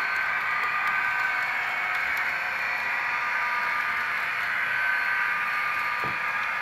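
HO scale model train running along the layout track: a steady whirring hiss of wheels and motor, with faint high tones that waver in and out.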